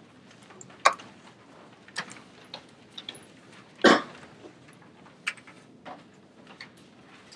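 Room sounds: scattered taps and clicks of laptop keys and handled paper, with one louder short noise about four seconds in.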